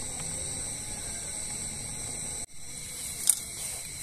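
Steady hiss of a camp stove with margarine and palm sugar cooking in the pot, under a constant high insect drone. The sound drops out for an instant about two and a half seconds in, and a single light click comes soon after.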